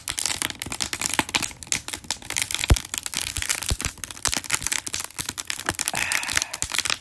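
Wood fire crackling and popping in a Solo Stove fire pit: a dense run of irregular small snaps, with a few sharper pops scattered through, the strongest about three seconds in.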